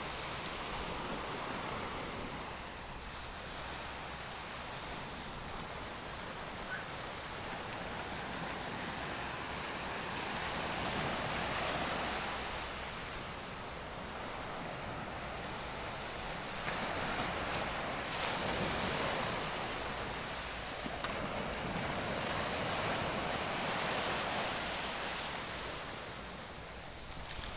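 Small waves breaking and washing up over a sandy beach, the surf swelling and easing every few seconds.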